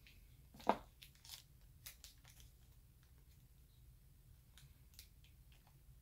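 Faint crinkling and scattered small clicks of a small clear plastic zip bag being handled and opened, with one louder crackle under a second in.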